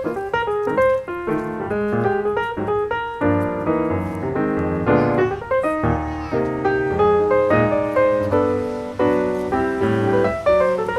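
Piano music playing a steady run of notes.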